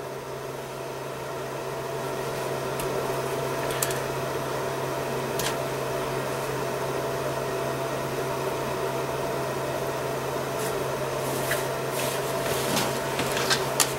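Steady low background hum, with a few faint light clicks from handling stranded wire, small fork terminals and a crimping tool.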